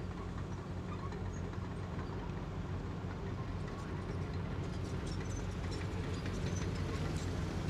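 Small motor-scooter engines running, growing slowly louder as a scooter rides closer, with a few faint ticks near the end.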